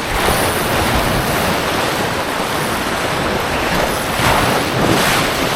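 Steady wind noise on the microphone mixed with the wash of waves, a loud even rush with a low rumble.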